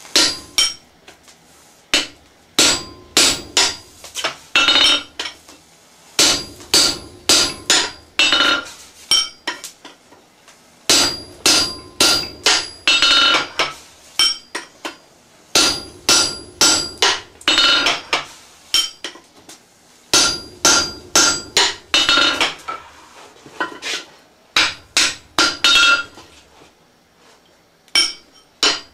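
Hand hammer forging steel on an anvil: sharp blows a few per second, in runs with short pauses between them, each blow ringing briefly.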